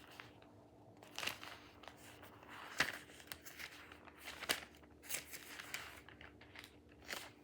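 Bible pages being leafed through: faint papery rustles and crinkles, with several short flicks as pages turn.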